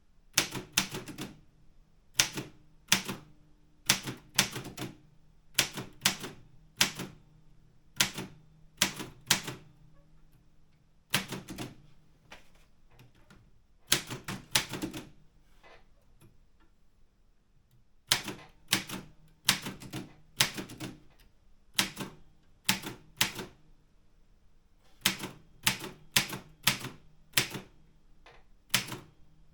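Optima Elite 3 manual typewriter being typed on: sharp, separate keystrikes at a slow, uneven pace, about one or two a second, with a pause of a couple of seconds midway.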